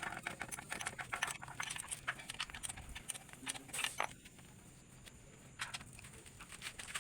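Scattered light metallic clicks and clinks of hand tools and bolts being handled during work on a truck transmission. They come thickest in the first few seconds, fall quieter for a moment about four seconds in, then pick up again.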